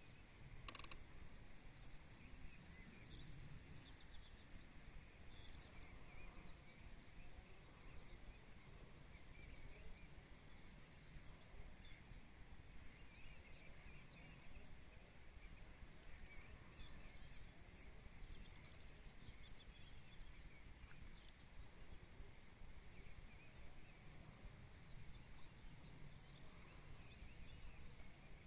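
Near silence: faint marsh ambience, a low steady rumble with faint scattered high chirps, and one brief click less than a second in.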